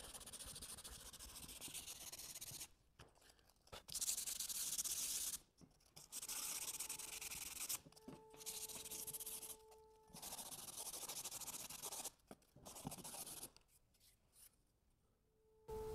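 Hand sanding with a sandpaper-wrapped wooden block rubbed along the edges of veneer edge-banded wood molding strips. It comes in several passes of one to two seconds each, separated by short pauses.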